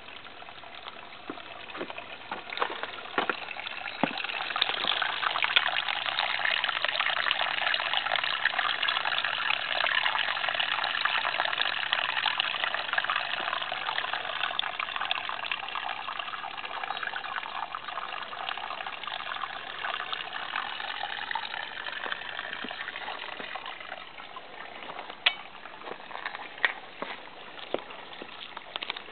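A small brook trickling and splashing over stepped rock ledges in a thin, low flow. The steady rush of water grows louder for most of the time and fades near the end, when a few sharp clicks come through.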